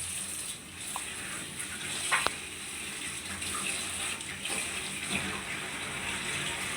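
Hot mustard oil sizzling steadily in a pan of frying chicken, with a few short metal clinks of a utensil, one sharper about two seconds in.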